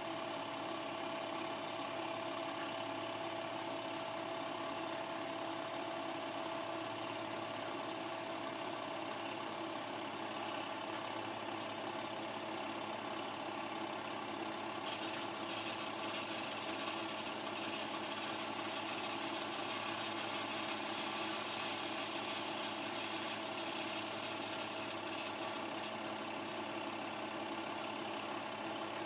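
Home-movie film projector running, a steady even mechanical clatter with a constant hum under it; a brighter hiss joins about halfway through.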